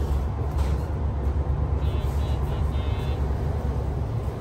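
KTR8000 diesel railcar standing at the station with its engine idling in a steady low rumble, heard from the gangway end of the car. About two seconds in there is a short run of four or five high beeps.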